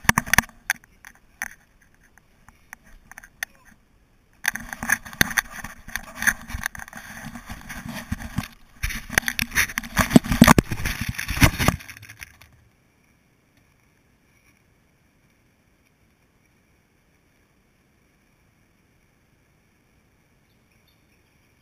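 Handling noise on a small camera: fingers rubbing, scraping and knocking against its body and microphone in irregular bursts for about twelve seconds. It stops abruptly, leaving only a faint steady high tone.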